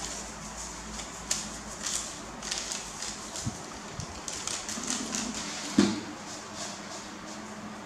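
A plastic seasoning sachet crinkling and being shaken over a bowl, with scattered light clicks and rustles. About six seconds in comes a short, sharp pop, the loudest sound, as the lid is pulled off a plastic tub.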